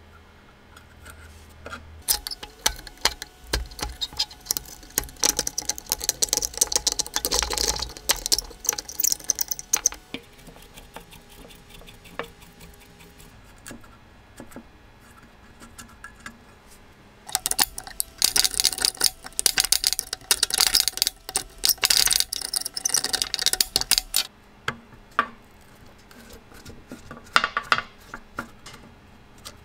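Rapid metallic clicking and scraping of a screwdriver and small nuts and screws on the antique fire bell's rusty cast iron base as it is taken apart, in two long runs with a short burst near the end.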